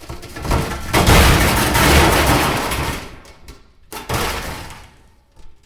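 AI-generated sound effect of a huge door opening and a mass of wood, glass and metal crashing and clattering onto a floor. A loud crash swells about a second in and dies away, followed by a second, shorter crash about four seconds in.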